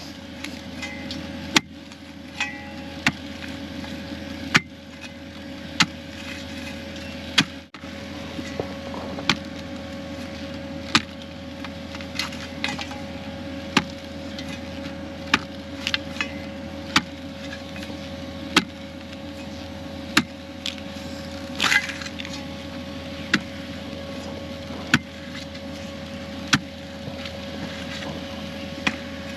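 Excavator engine running steadily, with sharp short knocks or clicks repeating about every second and a half.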